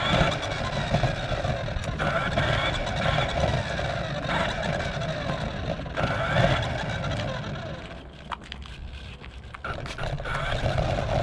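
Radio-controlled car driving, heard from a camera mounted on top of it: its motor whines up and down with the throttle over the noise of the tyres and chassis rattling along the ground. It eases off about eight seconds in, with a few clicks and knocks, then picks up again near the end.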